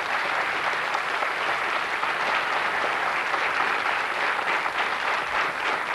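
Studio audience applauding: steady clapping from many hands, tailing off slightly near the end.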